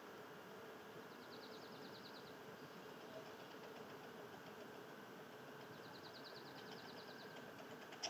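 A small songbird's trill, a quick even run of high notes lasting about a second, sung twice. Under it runs a faint steady background hum.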